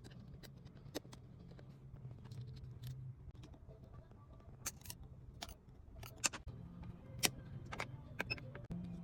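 Small tools and parts clicking and tapping irregularly against an iPad during a screen repair, a dozen or so sharp ticks over a low hum.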